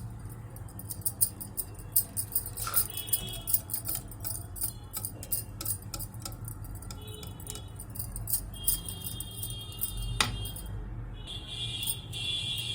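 A spoon stirring gram-flour and buttermilk batter in a bowl, with quick, irregular clinks and taps against the bowl. A steady high tone joins in over the last few seconds.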